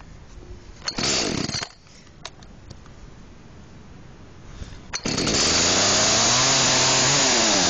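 Echo two-stroke chainsaw being cold-started on choke: a short pull of the recoil starter about a second in, then the engine catches about five seconds in and keeps running loudly, its pitch rising and falling.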